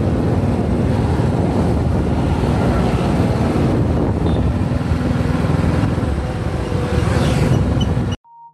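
Riding noise from a moving motorcycle: a steady rush of wind and engine and road noise. It cuts off suddenly near the end, and electronic keyboard music begins.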